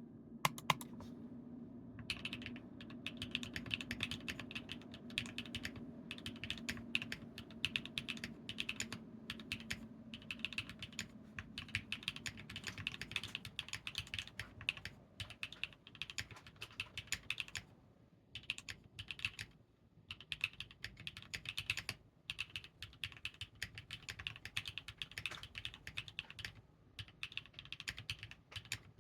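Typing on a Helheim Freja65 mechanical keyboard with hand-lubed Gateron x Skyloong "Geek" Speed Silver linear switches and NovelKeys Spellbook keycaps: a fast, continuous stream of keystrokes with brief pauses. A low steady hum underneath fades out about ten seconds in.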